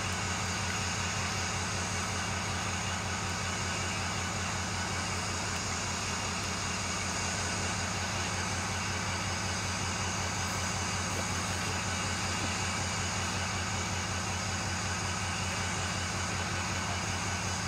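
A steady low mechanical throb with a fast, even pulse, like an engine idling, over a constant hiss.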